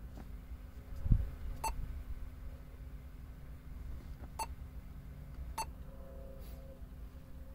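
Short electronic beeps from a double-DIN car stereo as its touchscreen buttons are pressed, three in all, spaced a few seconds apart. A single low thump about a second in is the loudest sound.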